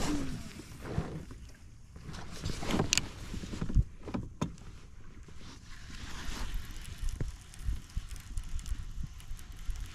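Knocks and scrapes of gear against a fishing kayak, led by a sharp knock at the start and scattered through the first half, with wind rumbling on the microphone.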